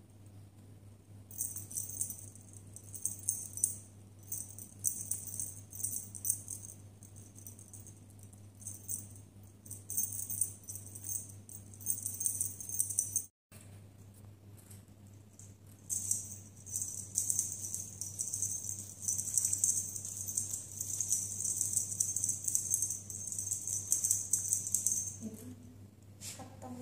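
A cat teaser wand toy shaken and batted, giving irregular, high, rattling jingles in quick bursts, over a low steady hum.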